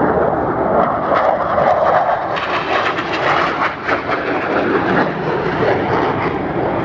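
Jet noise from an F/A-18 Super Hornet's twin turbofan engines during a display pass: a loud, steady rushing sound that turns harsher and brighter about two seconds in.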